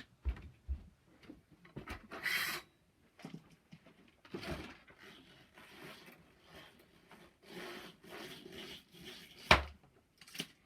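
Window blinds being opened: a series of rubbing and scraping swishes with light knocks, and one sharp click near the end.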